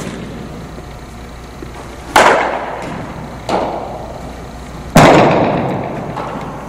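Sharp baseball impacts in a large indoor hall: two loud cracks about three seconds apart, each leaving a long echo, with a softer knock between them.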